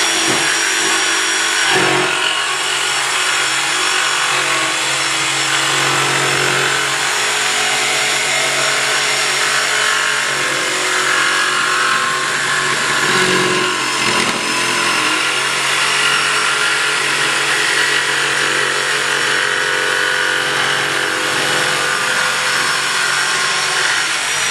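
DeWalt jigsaw with a coarse-toothed blade cutting a curve through plywood. The motor holds a steady speed, with a high whine over the noise of the blade chewing through the wood.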